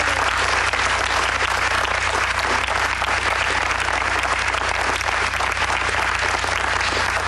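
Applause from a small group of people clapping by hand, dense and steady throughout.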